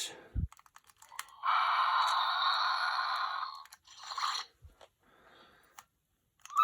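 Plastic bag crinkling and rustling as it is handled: one long stretch of about two seconds, then a shorter burst, with a few light clicks before it.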